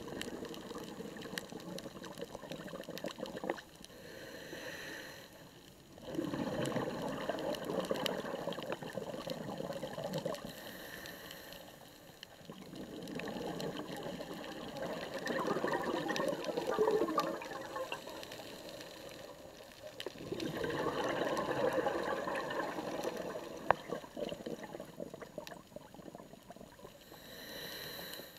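Scuba diver breathing through a regulator underwater: long bursts of exhaled bubbles about every six seconds, with quieter gaps for the inhale between.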